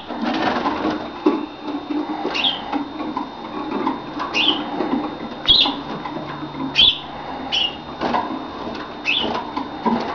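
A small finch calling: about six short single notes, each falling in pitch, one every second or two, over a steady low rustle.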